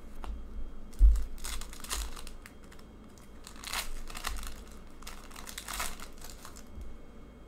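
Foil wrapper of an Upper Deck hockey card pack being torn open and crinkled by hand, in three bursts of crackling. A dull thump of handling comes about a second in.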